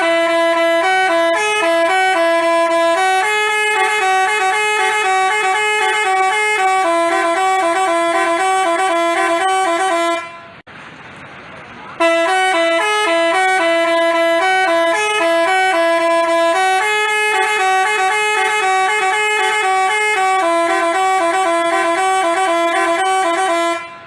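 Telolet basuri bus horn playing a melody of stepped, held notes. About ten seconds in it stops briefly, then the same tune repeats.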